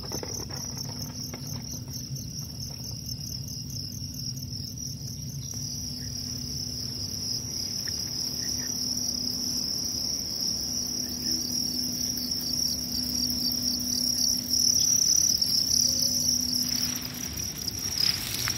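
Many crickets chirping in a steady, high-pitched chorus, with a brief rustle of leaves being handled near the end.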